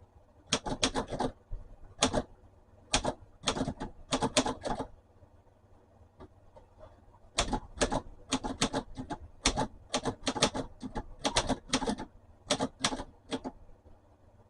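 Antique manual typewriter being typed on: type bars striking the paper in irregular runs of sharp clicking keystrokes, with a pause of about two seconds midway. It is the machine's first test after a new ribbon was fitted, and it is typing.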